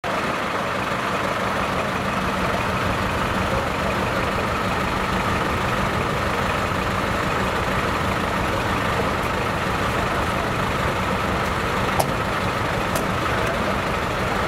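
Truck engine idling steadily, with a sharp click about twelve seconds in.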